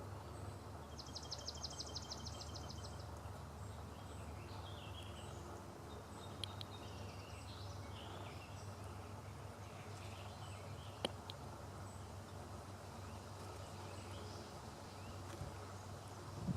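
Steady low outdoor rumble with faint bird calls: a rapid trill of about two seconds starting about a second in, then scattered chirps. There is one sharp click near the middle.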